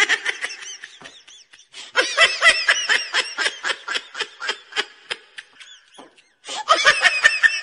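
High-pitched laughter in quick pulsing bursts, coming in three bouts with short breaks between them.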